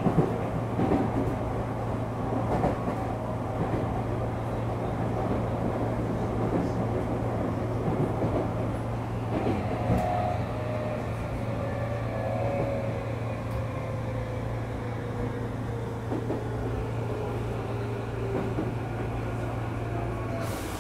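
Tokyu 9000 series train running on rail, heard from on board: a steady low hum under the running noise, with the traction motors' tones falling steadily in pitch from about halfway through as the train slows.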